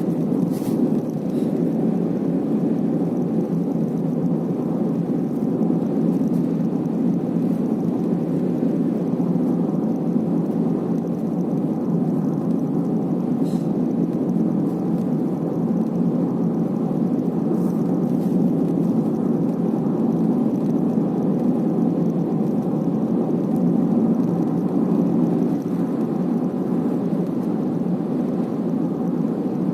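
Steady road and tyre rumble inside a moving Honda City's cabin, with a few faint clicks about a second in and again around the middle. It was recorded to catch an abnormal noise coming from near the B-pillar.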